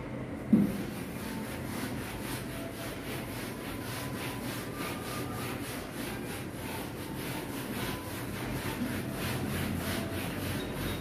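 A felt whiteboard duster rubbing back and forth over a whiteboard, wiping off marker writing in quick, even strokes. A single sharp thump about half a second in.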